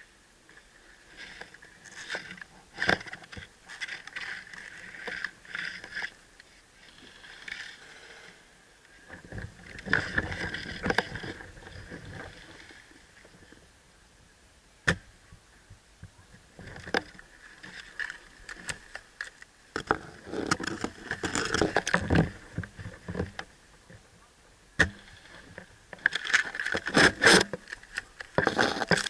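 Irregular rustling and scraping bursts of close movement and gear handling, with a few isolated sharp clicks.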